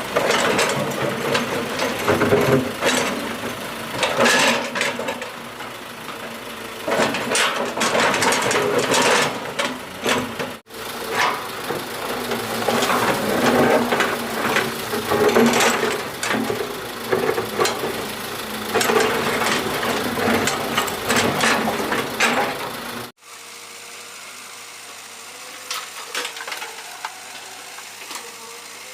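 Doosan 140 excavator at work: its diesel engine running under load with repeated metal clanks and rattles. About seven seconds before the end the sound drops abruptly to a quieter, steady engine hum.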